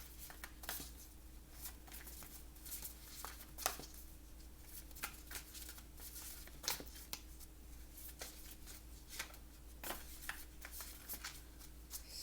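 Tarot cards being shuffled and handled: irregular soft flicks and taps of the card edges.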